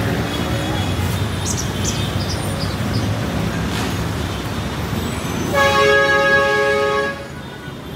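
Road traffic running through a congested intersection, with a vehicle horn giving one long, loud blast about five and a half seconds in.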